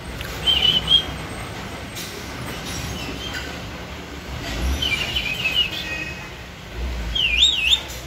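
Caged green parakeet giving short, high chirps and warbling whistles in a few separate bursts, ending with a quick up-and-down whistle.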